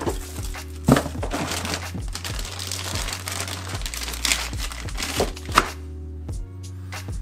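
Clear plastic parts bags crinkling and rustling as they are handled and one is pulled open, over background music. The crinkling dies away about six seconds in, leaving the music.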